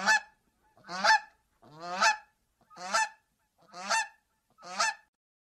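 Goose honking: six loud honks about one a second, each with a short rising start.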